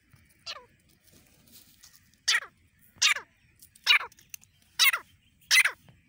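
Female francolin (teetar) calling: a series of short, harsh calls, each falling steeply in pitch. A faint one comes just after the start, then five loud ones from about two seconds in, a little under a second apart.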